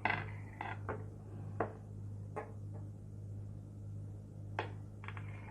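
Knife clicking against a plate while cutting soft potato dough into pieces: about seven sharp, irregular taps with a short ring, over a steady low hum.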